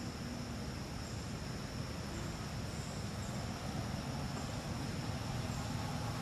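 Outdoor ambience of insects droning steadily at a high pitch, with a low rumble underneath.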